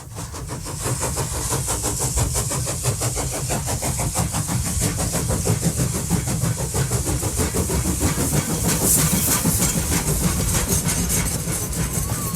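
A train running: a steady low rumble and hiss with a fast, even beat. It fades in over about the first second.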